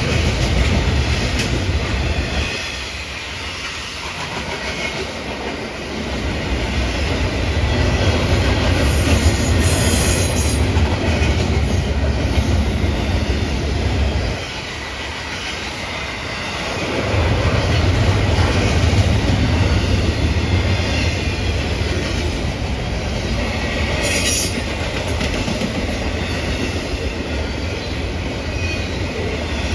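Double-stack intermodal freight train's loaded well cars rolling past on the track, a steady low rolling noise of wheels on rail that drops away briefly twice, about two seconds in and again near the middle.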